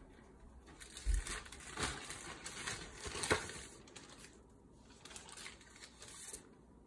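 Packaging rustling and crinkling as it is handled during an unboxing, in irregular bursts with a few sharper crackles and a soft bump about a second in, tapering off in the last couple of seconds.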